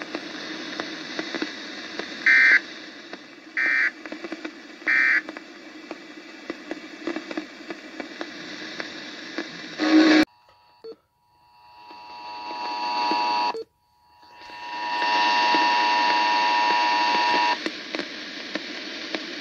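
NOAA weather radio audio through a RadioShack weather radio's speaker: a hissy carrier with three short digital data bursts a little over a second apart, the coded signal that marks an alert message. About ten seconds in the audio cuts out, then a steady multi-tone alert tone fades up, breaks off briefly and sounds loudly for about three seconds as the radio goes into alert mode.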